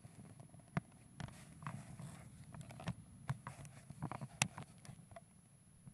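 Handling noise close to the microphone: irregular taps, clicks and rustling as leather motorcycle gear is moved about, with one sharp click about four and a half seconds in.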